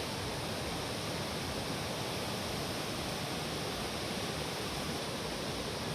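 Steady rush of fast-flowing floodwater, an even noise without breaks.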